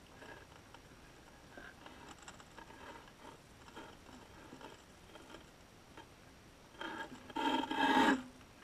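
Scraping and rubbing against a GoPro's underwater housing and its baited seabed frame, heard through the housing as short scratchy sounds, then a louder rasp lasting about a second and a half near the end.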